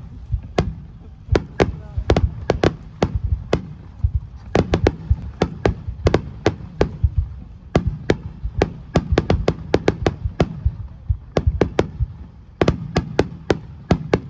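Fireworks display: many aerial shells bursting in quick succession, a rapid, irregular string of sharp bangs, several a second, over a steady low rumble, with brief lulls about a third of the way in and again near the end.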